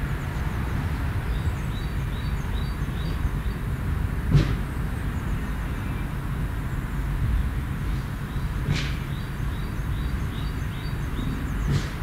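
Garden ambience: faint runs of short, high bird chirps over a steady low rumble. A brief sharp knock stands out about four seconds in, with two softer ones later.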